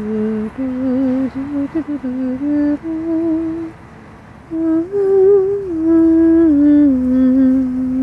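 A person humming a slow wordless tune close to the microphone, held notes stepping up and down, with a short pause about four seconds in.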